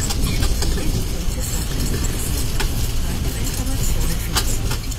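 Steady low engine rumble and road noise inside a slow-moving tourist tram, with a few short clicks and rattles.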